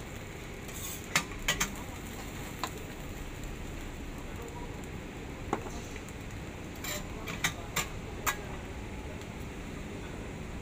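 Metal spatula and burger masher clinking and tapping against a steel flat-top griddle: sharp clinks in two clusters, around a second in and again around seven to eight seconds in, over a steady sizzle from the hot griddle.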